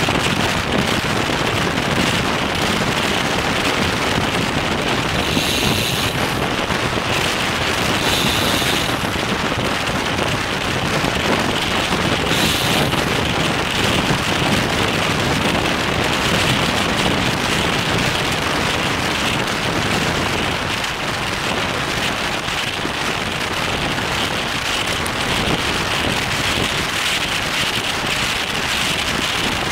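Steady rushing wind and road noise picked up by a bike-mounted Cycliq camera on a road bike at racing speed, with a few short hissing flares between about 5 and 13 seconds in.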